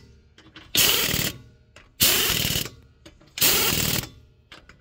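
Impact wrench driving wheel nuts onto a steel wheel, one nut after another: three short rattling hammer bursts of about half a second each, roughly a second apart. The nuts are being run down snug before final torquing by hand.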